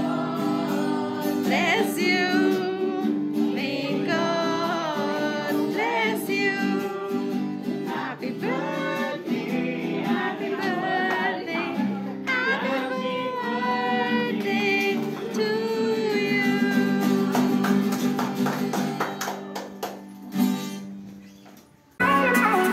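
A song with singing over a plucked guitar accompaniment. It fades out near the end, and a different music track starts just before the close.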